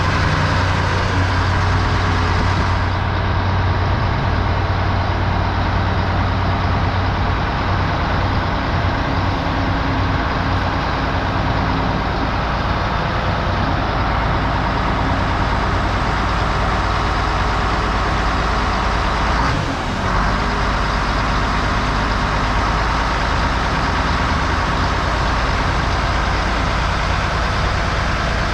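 Old Mack truck's diesel engine running steadily under way, a low drone with road noise over it. The sound dips briefly about two-thirds of the way through.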